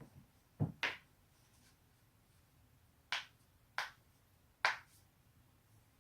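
Human joints cracking: five short, sharp pops, a deeper one followed closely by a sharper one just under a second in, then three more spaced well under a second apart after about three seconds.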